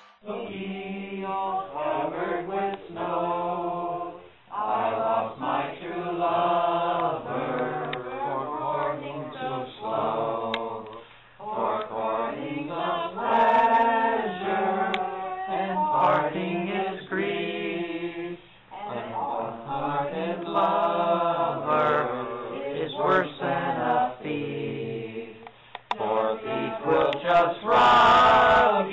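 Several voices singing a song together, with long held notes that move in steps.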